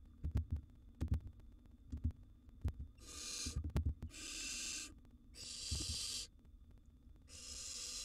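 Barn owl nestlings giving several long, rasping hiss-screech begging calls, each about a second long. Between and under them come dull low thumps as the owlets shuffle about on the wooden floor of the nest box.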